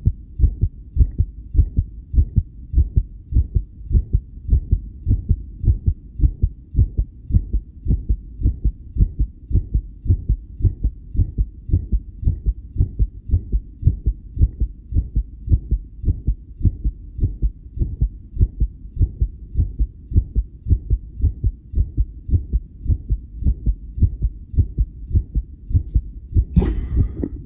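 A human heart beating strong and regular, picked up through a homemade electronic stethoscope as a steady train of low thumps. A brief rustle cuts across it near the end.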